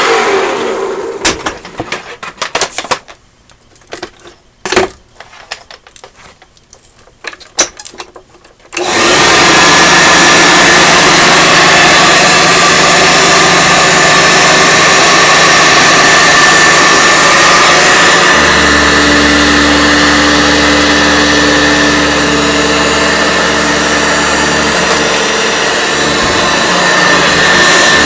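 An upright vacuum cleaner winds down after being switched off, followed by a few seconds of clicks and knocks as the machines are handled. About nine seconds in, a Eureka Ultra upright vacuum with a vertical-shaft motor and round belt starts abruptly and runs steadily as it is pushed over a bare wood floor, with a deeper hum joining partway through.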